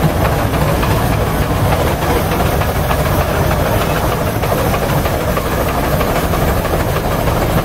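Keck-Gonnerman steam traction engine driving past close by, giving a steady hiss of steam over a rapid, even clatter of its running gear.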